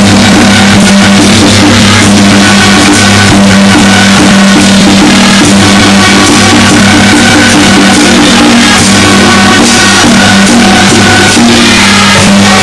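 Loud procession-troupe music with drumming, running continuously over a steady low hum.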